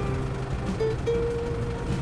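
Background music with a few steady held notes over a low hum.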